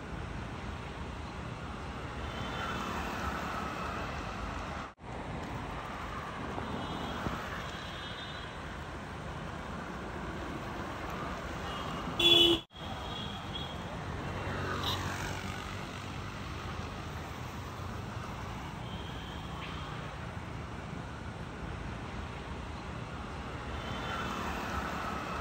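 Steady road traffic noise, with vehicles passing and fading. A short, loud sound stands out about twelve seconds in.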